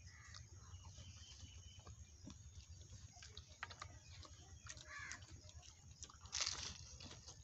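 Faint eating sounds: fried samosas being torn and bitten, the crisp pastry crackling, with scattered small clicks and a louder crunchy bite about six seconds in.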